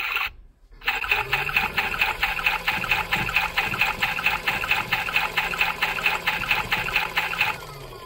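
Toy washing machine running its drum spin, with a rhythmic, water-like churning at about five pulses a second. It cuts out briefly near the start and stops shortly before the end.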